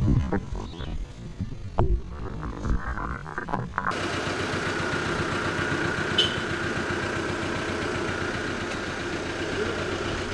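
Irregular knocks and bumps of close jostling for the first few seconds, then, after a sudden change, a motor vehicle's engine idling with a steady, even hum.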